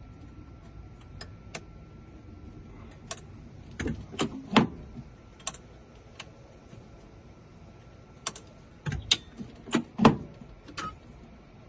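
Irregular clicks and knocks from handling a key in a key machine while a sliding glass door key is being decoded, with a faint steady high hum underneath. The loudest knocks come about halfway through and near the end.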